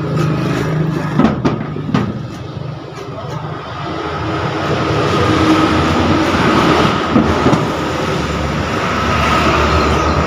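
Motor traffic on a nearby road: a vehicle's engine and tyre noise that grows louder from about four seconds in and stays loud, with a few sharp knocks in the first two seconds.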